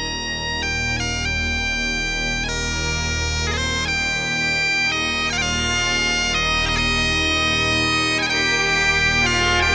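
Bagpipe music: a melody played note by note over steady, unbroken drones.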